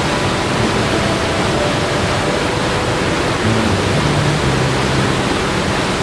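Wide river waterfall in heavy flow: a steady rush of falling, churning water, with faint held notes of background music underneath.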